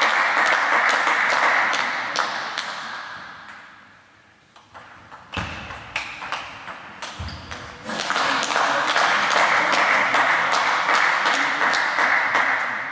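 Table tennis ball ticking off bats and table in a rally about halfway through, several irregular sharp clicks with a couple of low thumps among them. A loud, even hiss fills the first few seconds and comes back after the rally, fading near the end.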